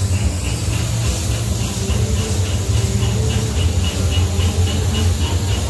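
TKt48 tank steam locomotive standing in steam, hissing over a steady low rumble, with a light regular ticking about three times a second.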